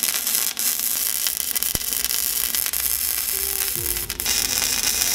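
MIG welder arc crackling and sizzling steadily as it welds a thin steel piece onto a thick lawn mower blade, with brief breaks about half a second in and near four seconds as the bead stops and restarts.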